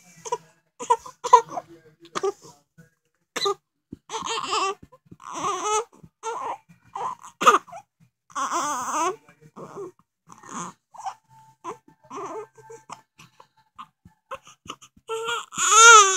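Baby crying and fussing in a string of short, high-pitched cries with breaths between them, ending in a longer, louder wail near the end.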